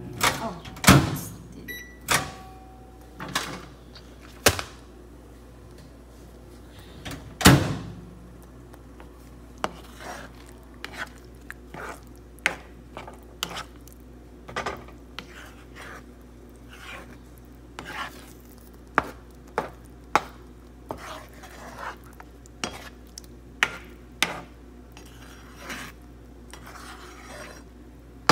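A spatula clacking and scraping against a frying pan as sardines and egg are stirred: irregular knocks, the loudest about a second in and at about seven and a half seconds.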